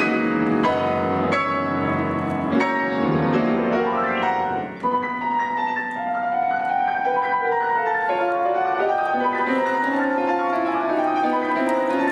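Background piano music: a steady run of piano notes.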